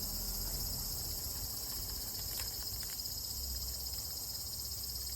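Chorus of cicadas shrilling steadily in summer, a continuous high-pitched buzz.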